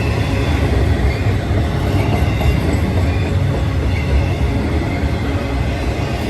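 Two intermodal freight trains of container well cars and trailer spine cars rolling past side by side on double track: a loud, steady rumble of wheels on rail, with a faint high wheel squeal.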